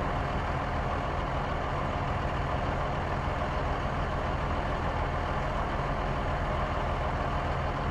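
Pickup truck engine running steadily at a low, even idle.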